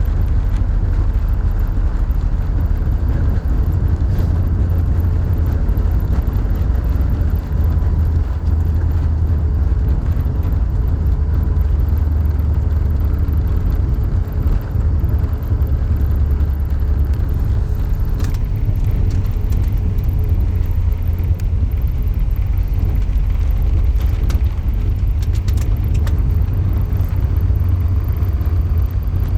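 Steady low rumble inside an Airbus A380's passenger cabin as the airliner rolls along the ground after landing. A few faint clicks or rattles come in the second half.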